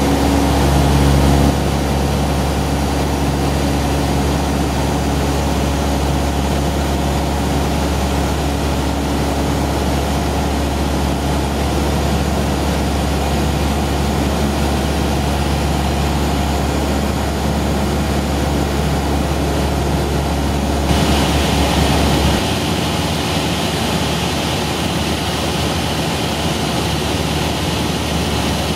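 Cessna 172's piston engine and propeller droning steadily, heard from inside the cockpit in flight. About three-quarters of the way through, the sound shifts: the deep hum drops away and the higher hiss grows.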